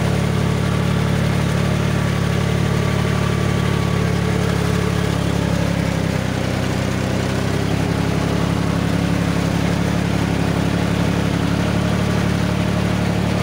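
Mahindra jeep's engine running steadily, heard from inside the jeep, its pitch dipping briefly about six seconds in.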